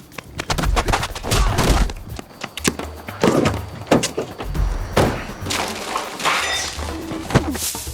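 A run of irregular thuds and hard impacts with breaking, shattering sounds among them, like fight sound effects, over background music with a low bass beat.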